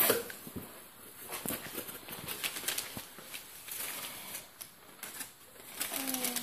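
Crumpled newspaper packing paper rustling and crinkling in quick, irregular crackles as it is handled and pulled out of a cardboard box.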